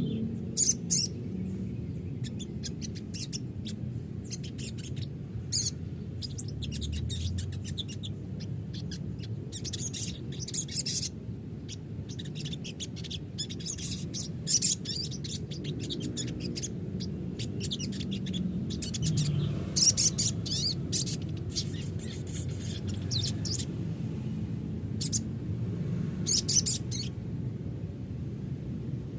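Sogon bird calling in short, high-pitched chirping phrases repeated again and again, the rapid twittering used as a lure to set other sogon birds calling. A steady low hum runs underneath.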